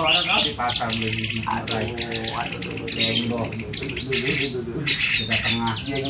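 White-rumped shama (murai batu) singing: a fast, unbroken string of high trills and quickly repeated notes.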